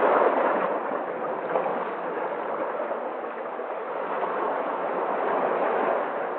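Sea waves washing in: a steady rushing surf that swells at the start, eases off through the middle and builds again toward the end.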